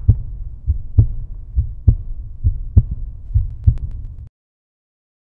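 A heartbeat sound effect: low double thumps, about one pair a second, over a low rumble. It cuts off suddenly about four seconds in.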